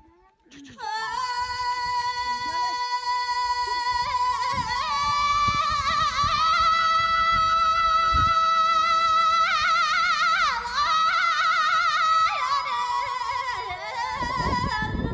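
Background music: a high voice sings long held notes with wavering ornaments over a light rhythmic backing, starting about a second in.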